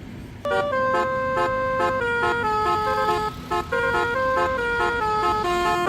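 Multi-tone telolet horn playing a tune: held horn notes sounding two or three at a time and stepping between pitches, starting about half a second in.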